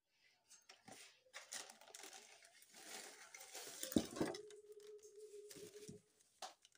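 Inner bag of a boxed pancake mix rustling and crinkling as it is slid out of its cardboard box, with a sharp knock about four seconds in.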